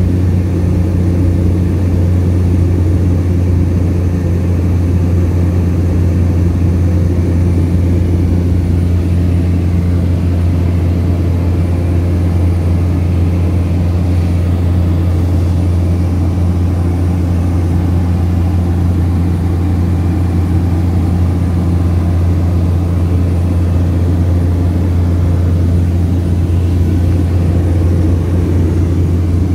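Steady low drone of a small propeller plane's engine and propeller, heard from inside the passenger cabin in flight.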